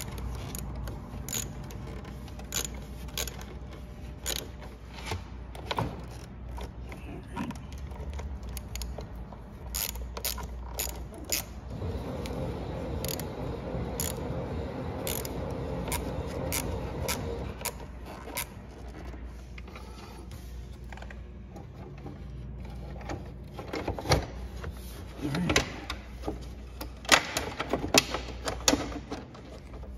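Hand tools on car-battery terminal hardware: small metal clicks, taps and scrapes as the new battery's side-terminal bolts are threaded in and tightened. In the last few seconds come louder knocks as the lower side body panel is pushed back into place.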